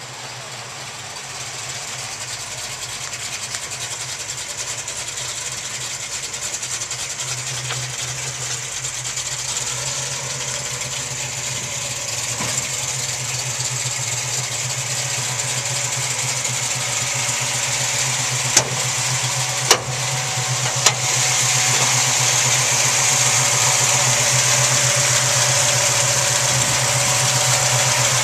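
1971 Plymouth Road Runner's 440 big-block V8 idling steadily, growing louder throughout. Three short clicks come a little past the middle.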